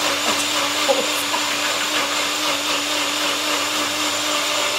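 Nutribullet blender running steadily at full speed, blitzing hot broccoli and Stilton soup: an even whir over a constant motor hum.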